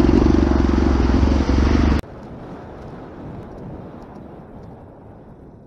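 Yamaha sport motorcycle engine idling loudly close to the microphone, with a steady pulsing note. It cuts off abruptly about two seconds in, giving way to quieter wind and road noise from a motorcycle under way, which fades.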